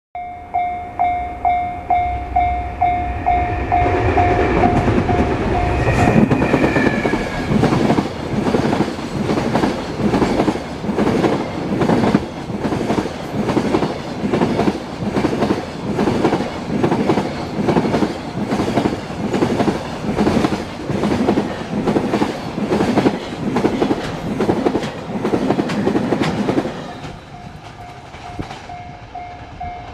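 Level-crossing warning bell ringing in a steady repeated electronic ding, then a train passing over the crossing: wheels clacking over the rail joints in an even rhythm of about one and a half beats a second for roughly twenty seconds. A brief falling tone sounds about six seconds in. As the train clears, the clacking stops suddenly and the crossing bell is heard again.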